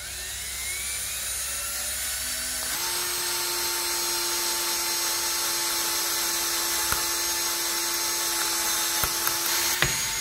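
Cordless drill boring a hole through a broken stud sunk below the surface of a housing. The motor whine rises as it speeds up over the first few seconds, then holds steady under load, with a few sharp clicks near the end.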